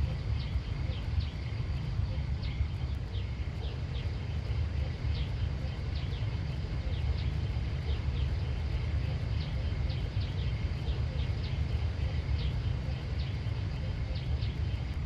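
Outdoor ambience: a steady low rumble under short high chirps from small birds, repeating irregularly a few times a second.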